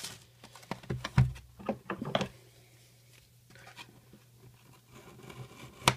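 Cardboard trading-card box being handled and its tape seal slit with scissors: scattered light taps and scrapes, busiest in the first two seconds and quieter after, over a steady low hum.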